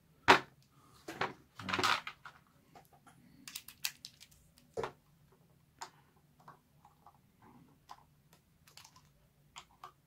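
A sharp knock and two short rustles of paper towel over a plastic tray as a screwdriver is found, then small scattered clicks and scrapes of a flathead screwdriver working the side-plate screws of an Abu 6500 baitcasting reel.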